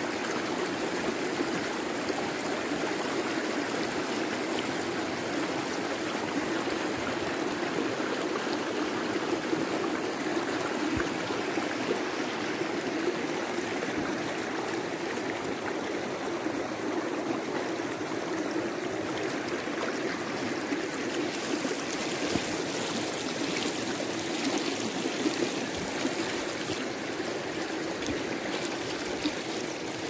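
River rapids rushing steadily over and between boulders, a continuous even roar of fast water.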